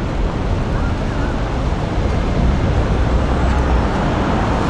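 Steady city street traffic noise: road vehicles running past with a continuous low rumble.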